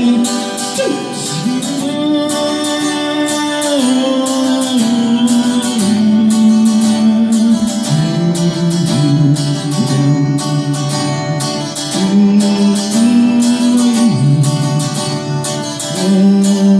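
Acoustic guitar strummed steadily under a voice singing long, held notes that slide from one pitch to the next.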